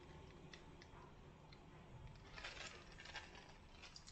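Faint crinkling of a clear plastic parts bag being handled. It starts a little past halfway, with a few soft clicks before it.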